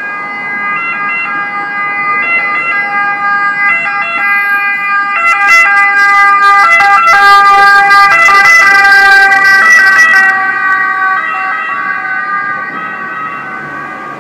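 Siren of a passing emergency vehicle, growing louder to its peak in the middle and then fading away, its pitch dropping slightly as it goes.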